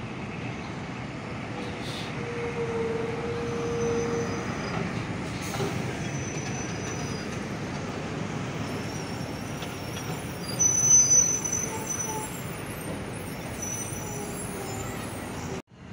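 Steady road traffic noise from passing vehicles, with a short high-pitched squeal about ten seconds in that is the loudest moment.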